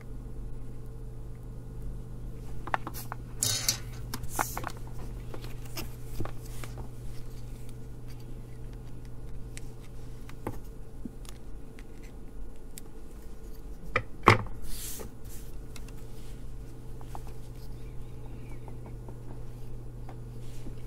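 Small clicks, taps and brief scrapes of hand tools and parts being handled on a workbench while a kit component is fitted, the sharpest click about fourteen seconds in, over a steady low electrical hum.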